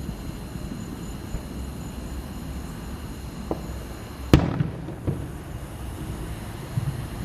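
Fireworks display: a low, steady rumble broken by scattered pops, with one sharp, loud bang a little past the middle.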